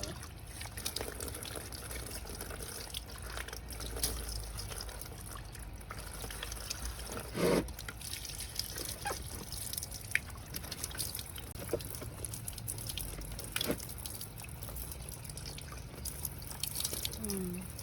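Water trickling and dripping, with scattered clicks and a louder knock about halfway through. A short falling vocal sound comes near the end.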